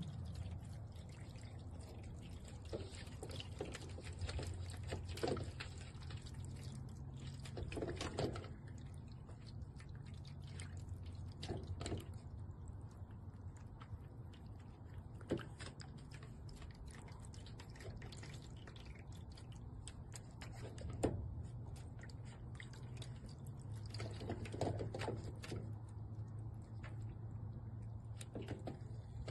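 Pet water fountain running: its small pump hums steadily while water trickles and drips back into the bowl.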